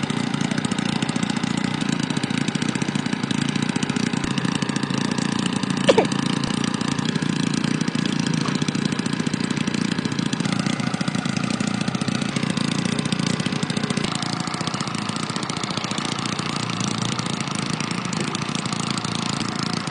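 A machine running steadily with a low hum and hiss, its sound shifting slightly about fourteen seconds in, with one brief sharp noise about six seconds in.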